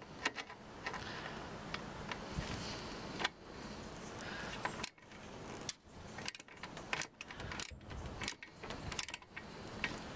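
Hand work on a roof rail fixing: a screw being turned into its captive nut by hand, with close rubbing and scraping for the first few seconds, then a run of small metallic clicks and rattles as a hand tool is picked up and fitted to the screw.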